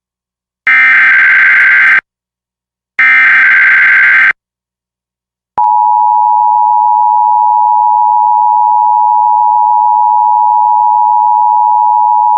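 Emergency Alert System SAME header: two bursts of harsh digital data squawk, each a little over a second and about a second apart, completing the three-times-repeated code that carries the alert. Then, about five and a half seconds in, the steady two-tone EAS attention signal (853 and 960 Hz) starts and holds, signalling that an alert message follows.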